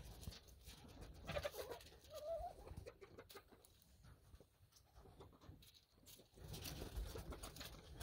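Chickens pecking at a pile of greens and grain, beaks tapping the food and ground, with a couple of soft short calls between about one and two and a half seconds in.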